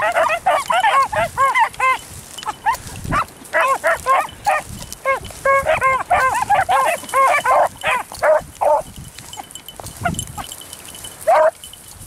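Beagles giving tongue as they trail a rabbit by scent: quick runs of short, high, overlapping bawls and yelps from more than one dog, which thin out after about nine seconds, with one last cry near the end.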